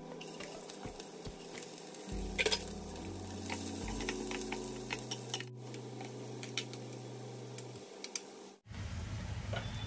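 Whole spices and sliced onions sizzling in hot oil in a non-stick kadai, stirred with a steel spoon, with scattered clinks of the spoon against the pan and a louder clatter about two and a half seconds in.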